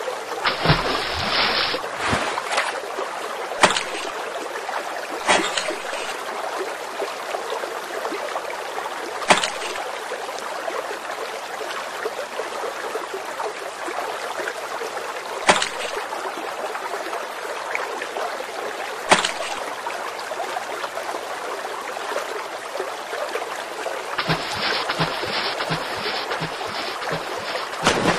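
Water rushing and splashing around a single floating bamboo pole as a rider skims it across a pond, with a few sharp clicks at irregular intervals.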